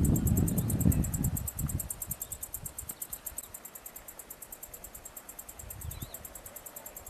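Insects chirring in a fast, steady, high-pitched pulse of about ten beats a second. A low rumble in the first second or so fades away.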